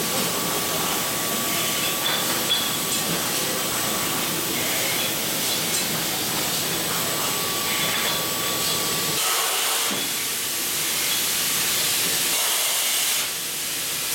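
Automatic beer bottling machine running: a steady hiss of air and spray from the rotary rinser and filler, with a faint steady whine that stops about nine seconds in.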